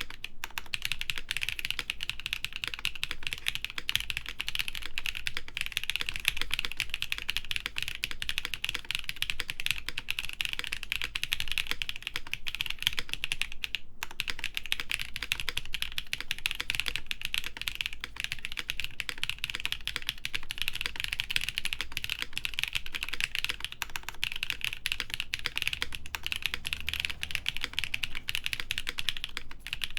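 Fast, steady typing on a mechanical keyboard: a Gray Studio Think 6.5 v3 with an FR4 plate, lubed Designer Studio Graphite Gold switches and GMK keycaps, giving a dense run of key clacks. There is a very brief pause about halfway through.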